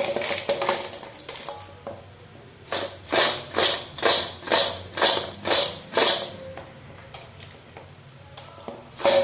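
Acoustic guitar strummed in an even rhythm, about two strums a second, in a run that stops for a couple of seconds before starting again near the end.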